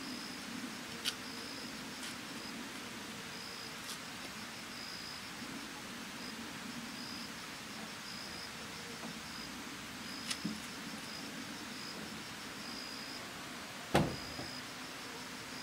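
High, short insect chirps repeating on and off over a low steady hum, with a few light clicks and one sharper knock near the end.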